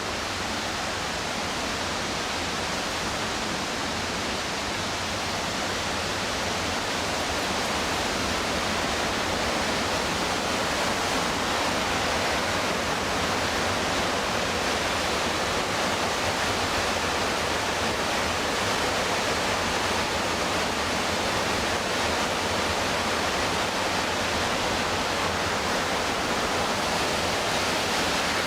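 Steady roar of the McKenzie River's whitewater and falls, a dense even rush of water that grows a little louder over the first several seconds and then holds.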